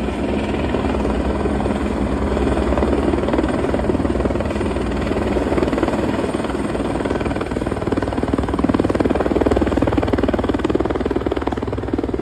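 Helicopter rotor beating rapidly as the machine flies low and descends close by. The sound gets louder through the middle and peaks about three quarters of the way through.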